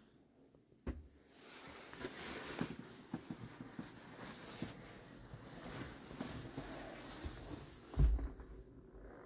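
Quiet footsteps on a wooden cabin floor with handling rustle from a handheld camera, a knock about a second in and a heavy thump near the end.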